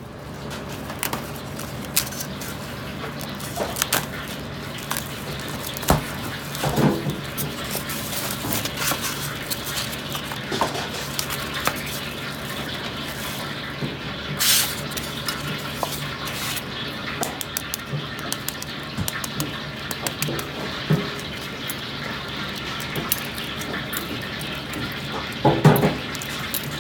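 Steady background noise with a low hum, broken by scattered light clicks and knocks. Near the end comes a louder cluster of cracking and clicking as a century egg's shell is peeled off by hand and drops into a steel bowl.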